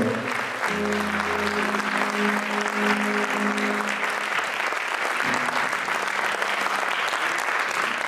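Audience applauding steadily after a song. For the first few seconds a chord on the acoustic guitar rings under the clapping.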